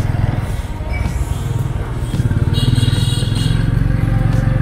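Motorbike engine running steadily under way in city traffic, heard from the passenger seat with wind rumbling on the microphone. A short high-pitched tone sounds for under a second near the middle.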